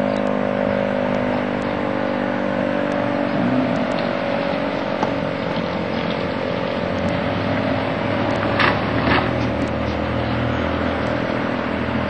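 ACA Screamer air raid siren winding down, its steady tone slowly sagging in pitch. Two short sharp sounds come about two-thirds of the way through, over a low rumble.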